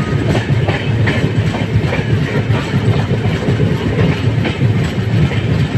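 Train wheels running over the rails: a steady low rumble with irregular clickety-clack of wheels over rail joints, heard from aboard a moving train alongside a goods train of covered wagons.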